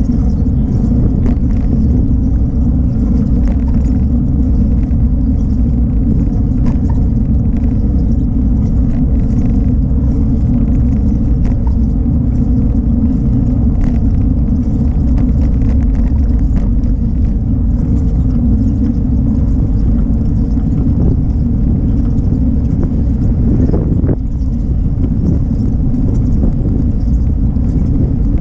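Wind buffeting the microphone of a bike-mounted camera while cycling: a loud, steady low rumble, with faint scattered clicks and rattles from the bike and road.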